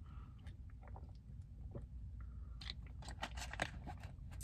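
A man drinking from a plastic water bottle: faint swallowing and mouth sounds, then a cluster of sharp crackles of the plastic bottle being handled about three seconds in, over a low steady hum.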